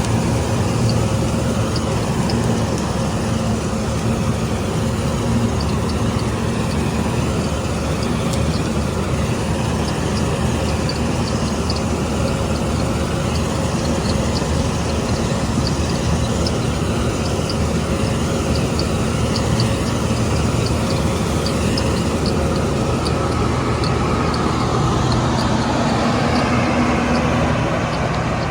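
Combine harvester's diesel engine running steadily under load while harvesting wheat, with a faint regular ticking from the machinery.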